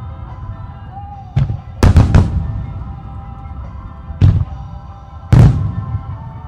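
Fireworks going off with five sharp booms over music: one about a second and a half in, a quick pair just after, then two more about a second apart, each ringing on briefly.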